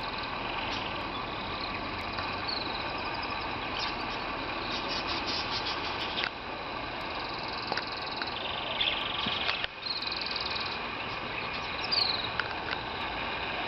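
Canaries and lovebirds chirping and trilling in an aviary, with rapid high trills and short sweeping chirps throughout, over a steady background hum.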